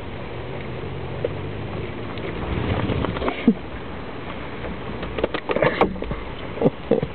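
Steady rain, with a goat grazing right beside the microphone: a few short crunchy sounds of biting and chewing wet grass, clustered in the second half.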